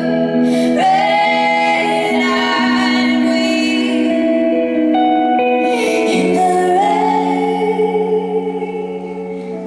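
Two women singing a slow song in close harmony with long held notes, over electric guitar, recorded live from the audience in a concert hall.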